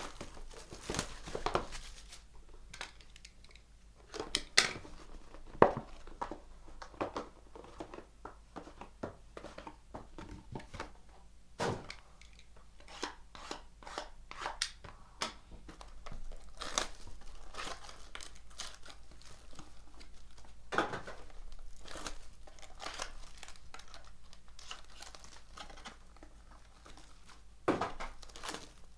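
Trading-card packaging being torn open and handled: wrapper tearing and plastic crinkling, with irregular cardboard clicks and scrapes.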